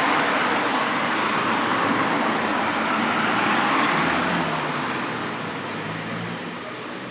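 Road traffic passing: a steady rush of tyre and engine noise that fades after about four seconds as the vehicles move away.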